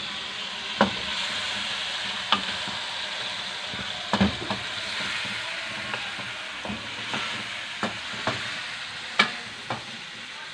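Chicken and masala sizzling in a wok over a full gas flame while the spatula stirs it, knocking against the pan now and then. The water added to the masala is being fried off.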